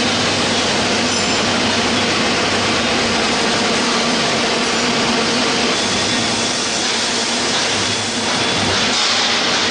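Industrial vegetable dicing line running: a steady machine whir with a constant hum from its motors and cutters.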